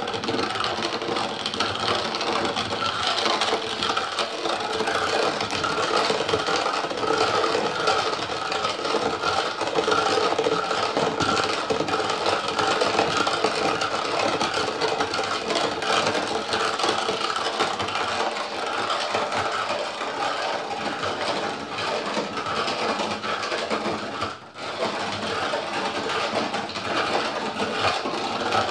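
Hand-cranked metal meat grinder turned steadily, its worm grinding menengiç (terebinth) coffee paste and pushing it out through the plate with a continuous metal grinding and rattling. The noise drops out briefly near the end.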